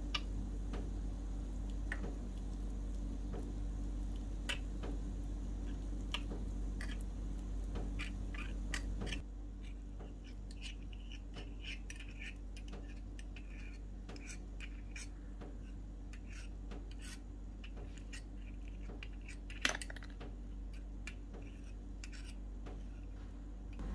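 Light clicks and scrapes of a miniature brass mortar and pestle grinding potato into a paste, then of a tiny metal spoon scraping the paste into a small bowl, over a steady low hum. One sharper tap comes a few seconds before the end.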